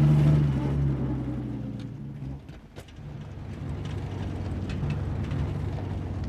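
Vintage touring car's engine running as it drives past close by, loudest about a second in. It cuts off abruptly around two and a half seconds in, giving way to a steady low street rumble with a few light clicks.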